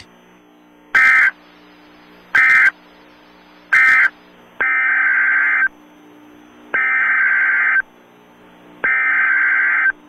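NOAA Weather Radio EAS (SAME) digital data bursts. First come three short bursts, the end-of-message code closing the broadcast just read. Then come three longer bursts, the triple SAME header opening the next alert.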